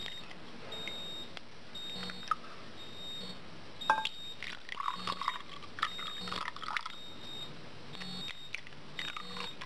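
Refrigerator-freezer door-open alarm sounding repeated short high beeps, because the freezer door has been left open. A light knock sounds about four seconds in.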